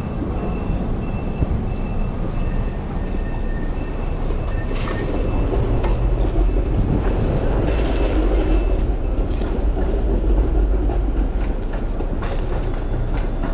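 Street traffic with a streetcar running past on its rails, over a steady low rumble of wind and road noise.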